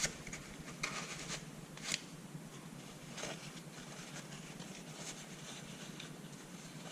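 Faint rubbing and scratching as a pistol frame is wiped dry of cleaning solvent, with a few short scrapes in the first few seconds.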